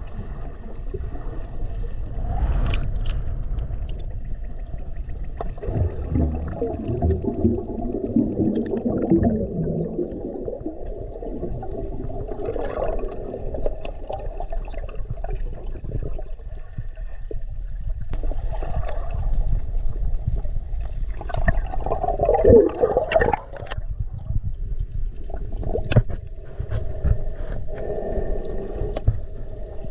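Muffled underwater gurgling and bubbling of spring water, heard with the microphone underwater, with scattered clicks and a louder spell of bubbling about three-quarters of the way through.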